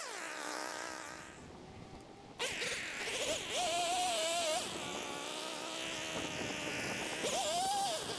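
Chainsaw running and cutting through a shrub's stems. Its buzzing whine wavers and rises and dips in pitch as the chain bites, sharply louder from about two and a half seconds in.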